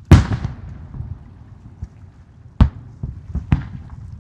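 Aerial firework shells bursting: one loud bang with a long rolling echo at the start, then two sharper bangs about a second apart near the end.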